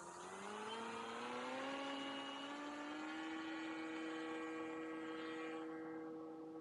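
RC paramotor's propeller motor running up, its whine rising steadily in pitch for the first three seconds, then holding a steady pitch under throttle as the model climbs.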